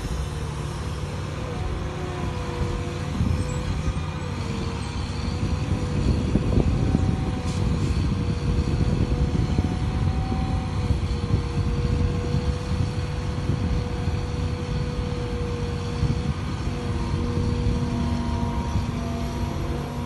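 Liebherr 944 crawler excavator's diesel engine running as the machine swings and digs, with a steady whine over a deep rumble. It grows a little louder in the middle as the bucket bites into the ground.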